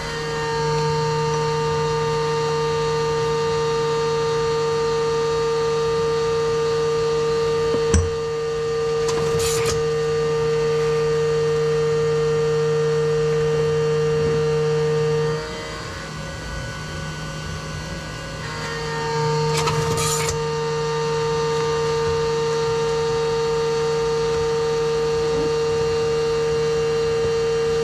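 CNC milling machine running a machining cycle with a steady whine. The whine drops away for about three seconds midway and then picks up again. A sharp knock about eight seconds in and two brief rasps of cardboard boxes being handled come over it.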